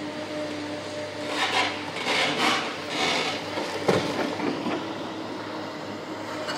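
Tracked excavator diesel engines running with a steady hum, while a demolition shear crunches and scrapes concrete in several loud noisy bursts over the middle, followed by a single sharp knock about four seconds in.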